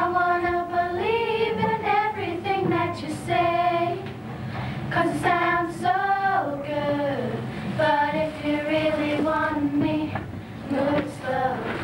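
A teenage girl singing, holding long notes and sliding between pitches.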